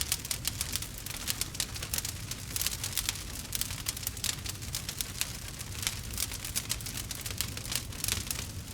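Wood fire crackling: a dense run of sharp pops and snaps over a steady low rumble of flame.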